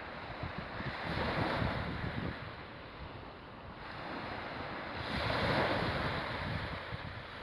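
Sea waves washing on the shore, with wind buffeting the microphone. The surf swells about a second in and again around five seconds in.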